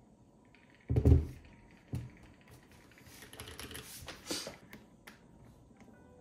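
A mechanical keyboard set down on a desk with a heavy thud about a second in and a lighter knock a second later, followed by a stretch of rustling and a few light clicks.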